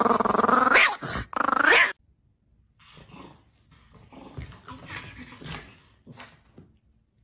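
A chihuahua growling loudly while guarding food, rising twice into higher snarls, until it stops about two seconds in. After a short break come fainter, broken growls and snaps from a small dog.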